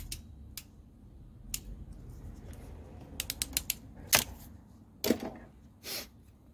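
Hand crimping pliers squeezing a blue butt crimp connector onto a wire: a quick run of small clicks, then a sharp louder click about four seconds in, followed by two shorter bouts of tool and connector handling.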